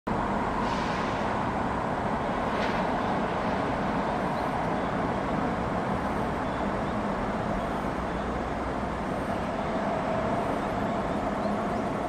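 Steady rushing of a swollen, muddy river in flood, an even noise that holds at one level throughout.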